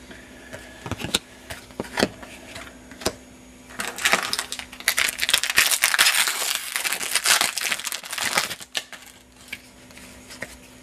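Trading cards and their packaging being handled by hand: a few scattered clicks and taps, then about five seconds of dense crinkling and rustling, then quieter handling near the end.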